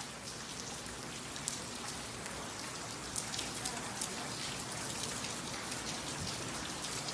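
Steady rain falling, with many separate drop hits ticking close by.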